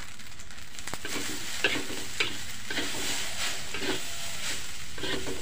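Fried rice sizzling in a large aluminium wok, with a metal spatula scraping against the pan in repeated short strokes from about a second and a half in.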